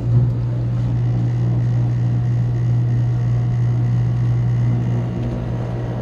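Ground-source heat pump running after start-up, its compressor and loop circulation pump giving a loud, steady low hum.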